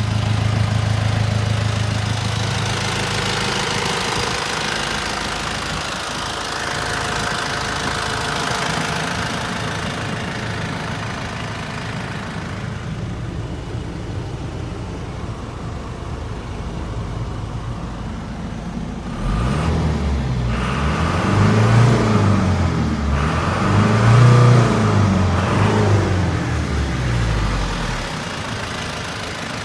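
Toyota Dyna truck engine idling steadily, then revved up and let back down a few times in the last ten seconds, each rev rising and falling in pitch.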